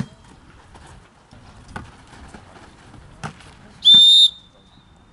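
A volleyball struck by hand three times, short sharp hits about a second and a half apart, then one short, loud, high blast on a referee's whistle about four seconds in.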